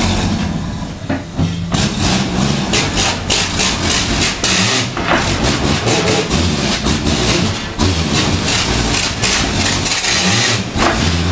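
Eimco 21 compressed-air rocker shovel working: its air motors run with a steady drone while the bucket is driven into a rock pile and swung up, with irregular knocks and clatter of rock and steel.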